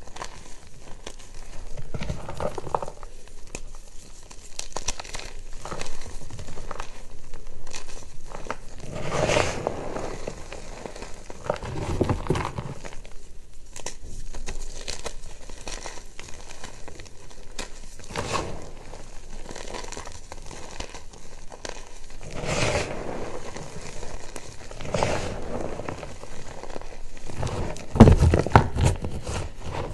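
Reformed gym chalk being squeezed and crumbled by hand, giving irregular dry crunching and crackling as the pieces break up and powder falls back onto the pile. Near the end a hand sweeps through the bed of chalk, the loudest crunching stretch.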